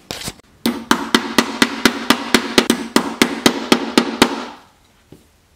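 Hammer tapping an M8 hex nut into its hex socket in a 3D-printed plastic fidget spinner, pressing it in flush: a run of quick, even blows, about four a second, stopping about four and a half seconds in.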